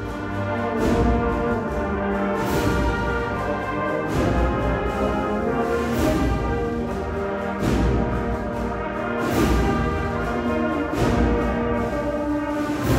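An agrupación musical, a Seville processional band of cornets, trumpets, trombones and other brass with drums, playing a march: sustained brass chords over percussion, with a sharp hit every second or two.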